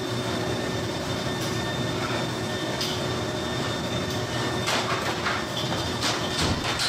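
Steady mechanical rumble with a faint hum, broken by a few short knocks. Near the end come quick footsteps as someone runs off across the floor.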